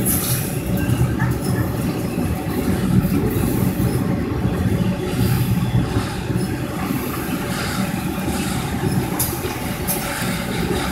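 Autorack freight cars rolling past: a steady rumble of steel wheels on the rails, with a few sharp clicks near the end.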